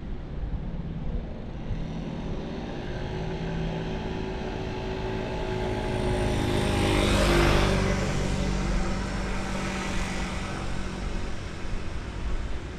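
A motor vehicle passing by on a city street: its engine and tyre noise grow over a few seconds, peak about seven seconds in, then fade away, over a steady low rumble of traffic.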